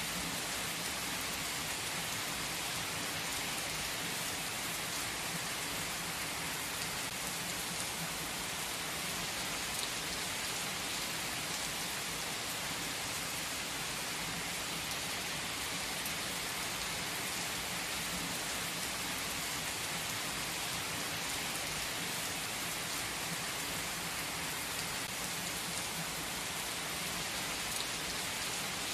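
Heavy rain pouring steadily onto asphalt pavement, an even hiss of countless splashing drops.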